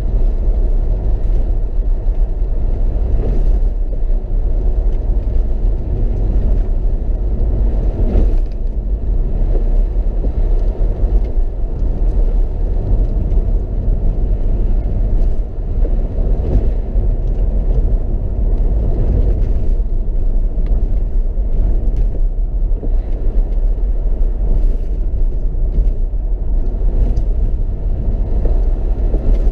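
Mercedes SLK 55 AMG heard from inside the cabin while driving on a wet road: a steady low rumble of the V8 engine and tyre noise.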